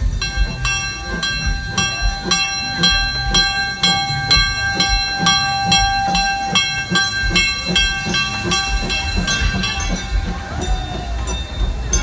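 Steam locomotive's chime whistle blowing one long, several-note blast that fades out about ten seconds in. Under it the moving train rumbles with a regular beat of about two to three strokes a second.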